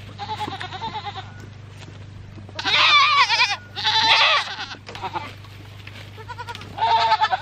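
Goats bleating as they are moved into a new paddock: a few faint calls at first, then two loud wavering bleats in the middle and another near the end.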